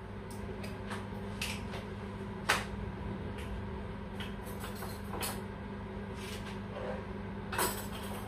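A kitchen drawer is pulled open and rummaged through: scattered clicks and knocks of items being moved about, the sharpest about two and a half seconds in, over a steady low hum.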